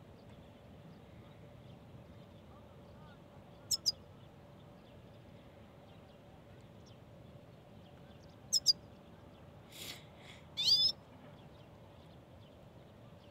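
Goldfinch calling: short, very high double chirps twice, a few seconds apart, then a brief rustle and a louder, longer call about ten seconds in.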